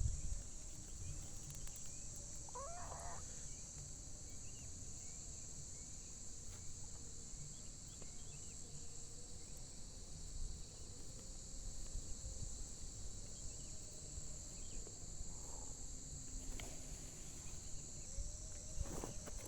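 Steady high-pitched drone of insects, with faint bird chirps scattered through it and one short pitched call about three seconds in.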